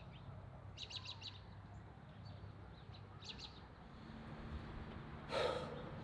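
Small birds chirping in two quick bursts of rapid high notes, about a second in and again a little after three seconds, over a faint steady low hum. A brief rustling swish near the end is the loudest sound.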